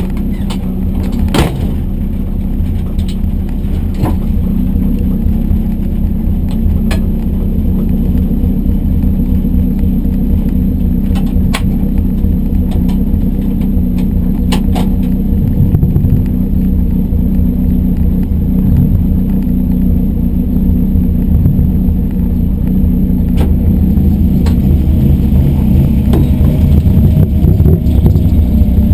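Rally car engine idling while stationary, heard from inside the roll-caged cabin: a steady low rumble, with a few sharp clicks and knocks in the cabin, growing a little louder near the end.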